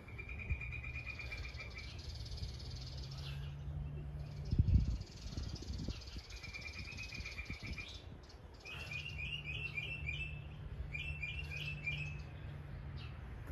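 Small birds chirping in repeated short trills and chirps over a steady low rumble of street traffic, with one dull thump about four and a half seconds in.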